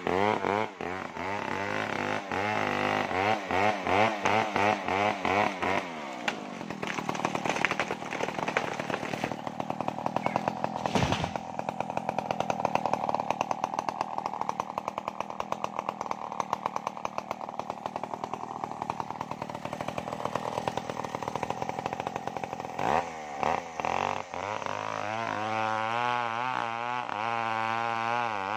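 Home-built 070-type chainsaw cutting through a sengon tree trunk, its engine labouring with a wavering pitch. It runs steadily without cutting for a long stretch in the middle, then bogs into a cut again near the end.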